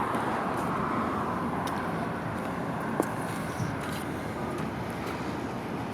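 Steady background rumble and hiss, with one short sharp click about three seconds in.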